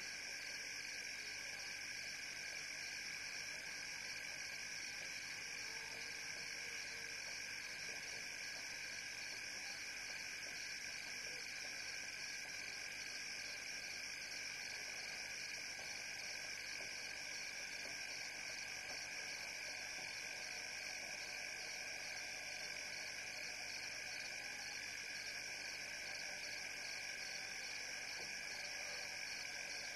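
Steady night-time chorus of calling frogs and insects, a continuous high trilling with no breaks or changes.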